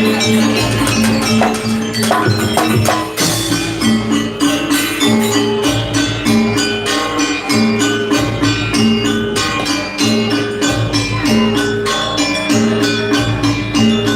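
Live traditional ensemble music for a Janger folk performance: repeated pitched notes in a steady rhythm over busy jingling and clicking percussion.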